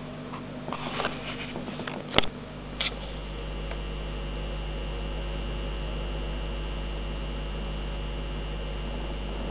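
Steady electrical-sounding hum with a low drone under it. There is light crackling and a sharp click about two seconds in, then the hum holds steady.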